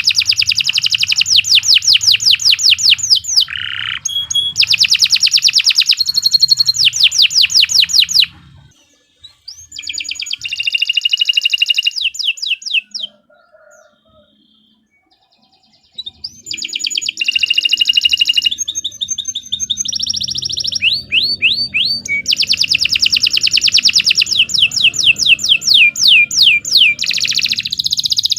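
Domestic canary singing: long, fast trills of rapidly repeated high notes. The song breaks off for several seconds in the middle, apart from one short phrase, then resumes with more trills.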